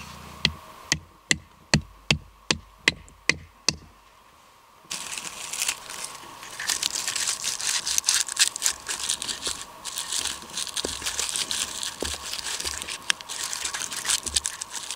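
A quick run of about nine sharp knocks in the first few seconds. Then, after a short pause, a small knife blade scrapes continuously across the top of a split log among dry wood shavings and jute tinder: rough scraping full of small clicks.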